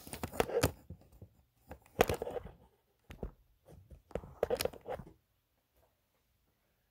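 Close rustling and knocking handling noise in irregular bursts, stopping about five seconds in.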